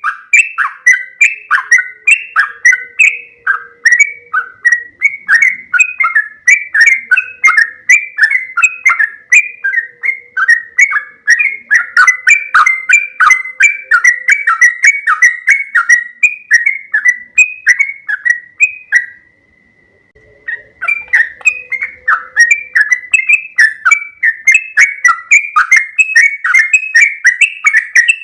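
Yellow-vented bulbul (trucuk) singing loudly: a fast, unbroken run of short bubbly notes, about three a second, with one brief pause about two-thirds through.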